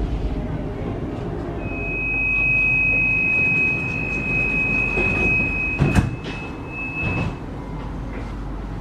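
Croydon Variobahn tram's door warning tone: a steady high electronic tone lasting about five and a half seconds while the tram stands at the stop. The doors shut with a sharp knock about six seconds in, over the low hum of the tram.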